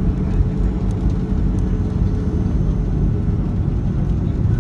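Jet airliner rolling down the runway after touchdown, heard inside the cabin: a steady, loud low rumble of engines and wheels on the runway.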